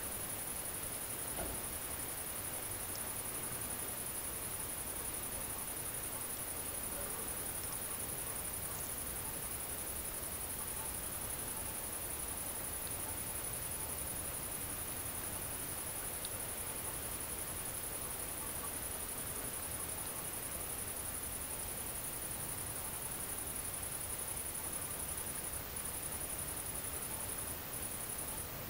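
Great green bush-crickets (Tettigonia viridissima) stridulating: a continuous, very high-pitched buzzing trill that cuts out briefly twice near the end.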